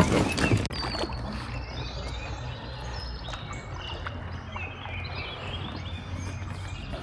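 Outdoor river ambience: a few loud knocks in the first second, then birds chirping over a steady low rumble.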